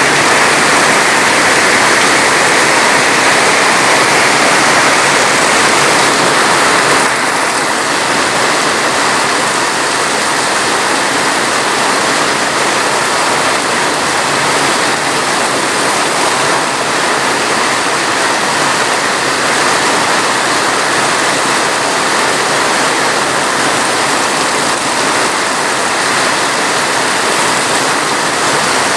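Heavy rain falling as a dense, steady hiss. It drops slightly in level about seven seconds in.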